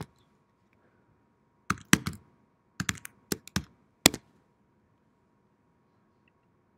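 Keys on a computer keyboard pressed in a few quick clusters, about ten keystrokes between two and four seconds in, as a name is typed into a search box.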